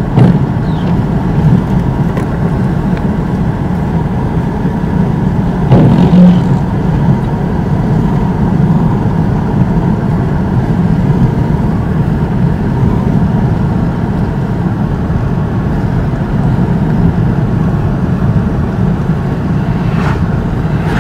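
Steady road and engine noise heard from inside a moving car's cabin as it drives along at speed, with a brief louder bump about six seconds in.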